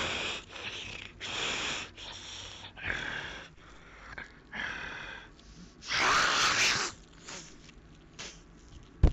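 A person's voice making breathy monster hisses and snarls in short bursts, the longest and loudest a hiss about six seconds in. A sharp thump comes at the very end.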